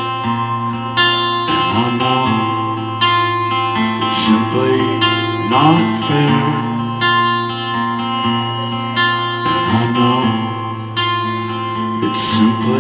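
Live band playing an instrumental passage between sung lines, led by a strummed acoustic guitar, with a beat landing about once a second and some sliding notes.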